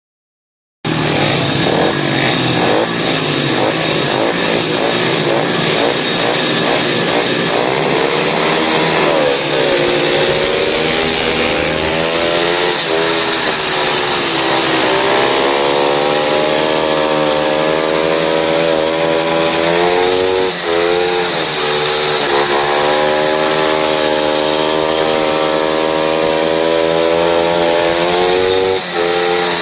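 Speedway motorcycle's 500cc single-cylinder engine, heard from on board, revving hard with its pitch rising and falling again and again as the throttle is opened and eased through the turns, over a steady hiss. It starts suddenly about a second in.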